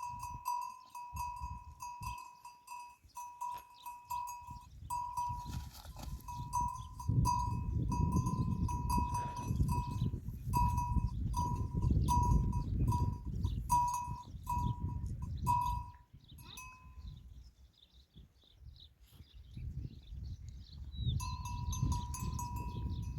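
Bells on a flock of sheep and goats clanking continuously as the animals move. They drop out for a few seconds about two-thirds through, then ring again near the end, over a low rumbling noise.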